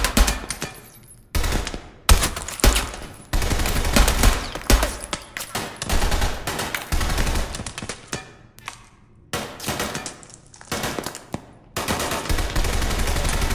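Film sound-design gunfire in a shootout: rapid bursts of automatic fire mixed with single shots, coming in loud clusters separated by brief lulls of a second or so.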